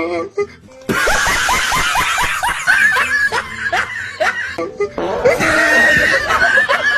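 Laughter: a run of quick snickering, chuckling laughs that starts about a second in after a short pause and goes on through the rest.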